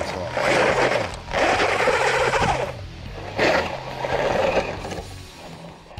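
Radio-controlled CEN Racing Ford F-450 pickup crawling up a rocky slope: its tyres scrabble and grind over loose rock and dirt in several bursts, the longest in the first half, dying down near the end.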